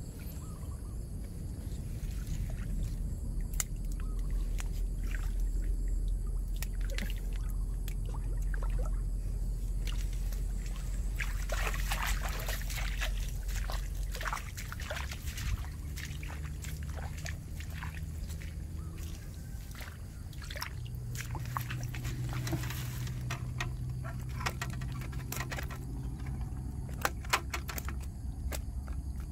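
Pond water splashing and sloshing as a hooked fish is drawn in at the bank, followed by a run of short rustles and clicks from handling the line and fish.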